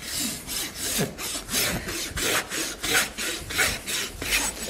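Farrier's hoof rasp filing a horse's hoof wall in regular back-and-forth strokes, about three a second, levelling and rounding the trimmed hoof before shoeing.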